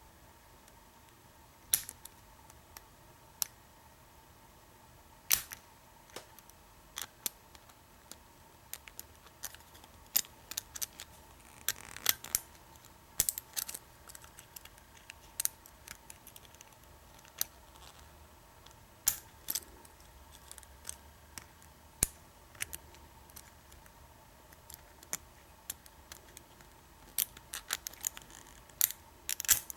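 Irregular sharp metallic clicks of a lock pick working the pins of an American 1100 padlock during single pin picking, coming singly and in short clusters.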